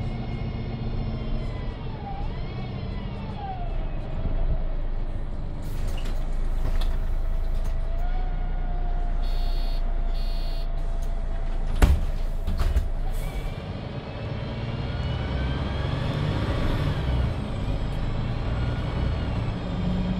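Inside a 2001 MAN NG313 articulated city bus with a MAN D2866 LUH24 diesel and Voith D864.3E automatic gearbox: the bus slows with a falling whine, stops, and its doors open with bursts of air and clunks. Two short beeps come around nine to ten seconds in, and a sharp knock just before twelve seconds marks the doors shutting. The bus then pulls away, its engine and gearbox whine rising.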